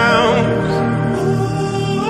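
Background music with sustained held notes and a slow, soft low line beneath.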